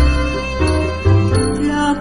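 Background music: an instrumental passage of a Thai pop song, with bass notes under held melody notes.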